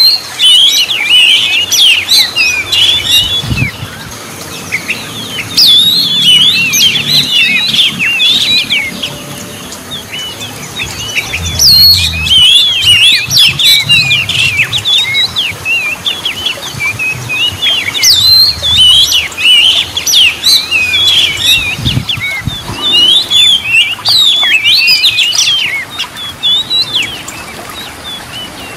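Oriental magpie-robin singing: bouts of rapid, varied whistled phrases, each a few seconds long, with short pauses between them.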